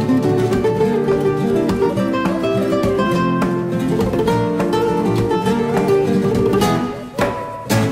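Background music of a fast, Spanish-style acoustic guitar piece, plucked and strummed, with a brief dip in level near the end before loud strummed chords return.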